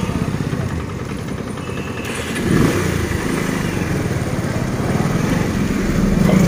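Motorcycle engine running while riding along a road, a steady low pulsing hum. It swells louder near the end as another motorcycle passes close by.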